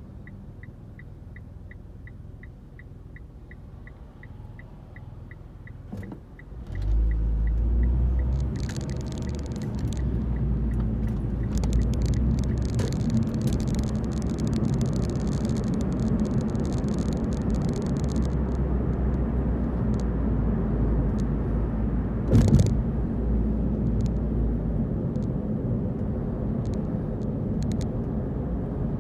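Car's turn indicator ticking evenly inside the cabin while the car waits at the lights. About seven seconds in, the ticking stops as the car pulls away, and a steady rumble of engine and tyre noise takes over. There is a single short thump about twenty-two seconds in.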